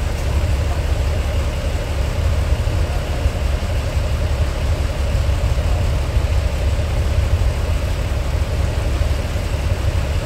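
Diesel engine of the DR2303 railcar running steadily, heard inside the passenger cabin as an even low rumble.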